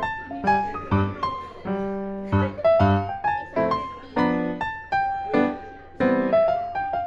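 Background music: a light, gentle piano tune of struck notes and chords, each note fading after it is played.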